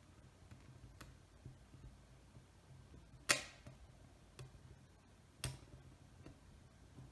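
A few faint clicks and two sharper taps, one about three seconds in and one about five and a half seconds in, over a faint low hum.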